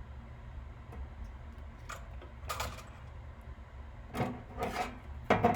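A few short clicks and clatters of small tools and parts being handled at a workbench, the last the loudest, over a steady low hum.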